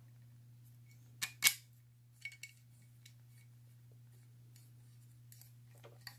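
Small clicks and taps of a metal screw and plastic camera-mount bracket being handled as the screw is pushed through the bracket's pivot prongs and tightened by hand; two sharp clicks about a second and a half in are the loudest, with a few fainter ones later. A steady low hum runs underneath.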